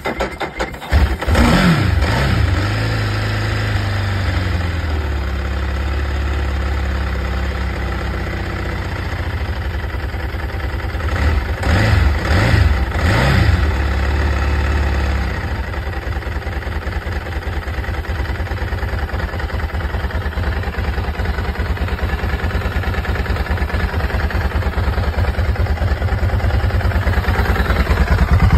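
2003 Ducati 999's Testastretta L-twin starting from cold. It catches with a rev about a second in and settles into a steady fast idle. It is blipped three times around the middle, then runs on at a pulsing idle that grows louder toward the end.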